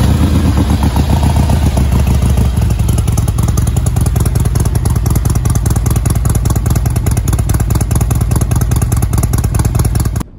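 Harley-Davidson Twin Cam 95 cubic-inch V-twin running at a steady idle through Vance & Hines exhaust, loud with even firing pulses, just after being started. The sound cuts off abruptly near the end.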